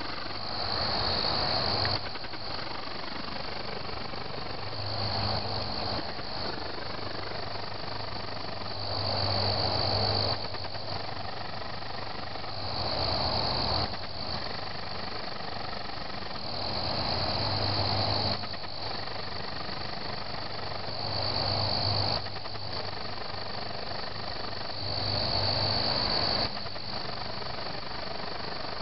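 Crickets chirping: a high trill swells in bursts of a second or two, every few seconds, over a low steady hum.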